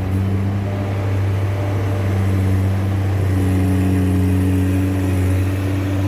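Case skid steer loader's diesel engine running at a steady, even speed under work.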